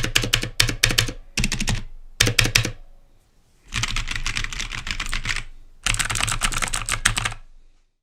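Keys on a gaming keyboard being typed rapidly in several bursts of fast clicking, with a short pause about three seconds in: a sound test of blue-switch against black-switch keys.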